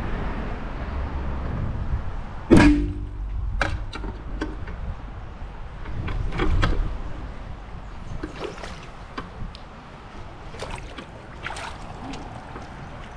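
A bowfishing shot: one sharp loud crack of the bow firing and the arrow striking the water about two and a half seconds in, with a brief low ringing after it. Then scattered lighter splashes and knocks as the arrowed fish thrashes and is pulled in on the line, with wind rumble on the microphone early on.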